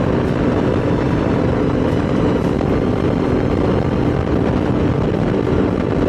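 Motorcycle engine running steadily at cruising speed, a constant drone with no change in pitch, over the rush of air past the moving bike.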